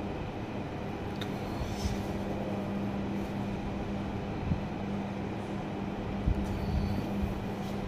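Steady hum and rumbling background noise, with soft paper rustles about two seconds in and again near the end.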